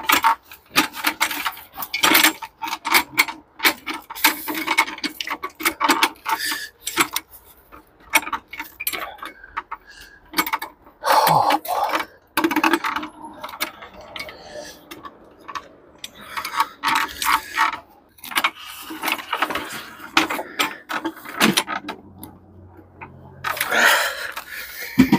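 Metal hand truck rattling and clattering under a heavy wooden carving as it is wheeled along, an irregular run of knocks and jangles with short pauses.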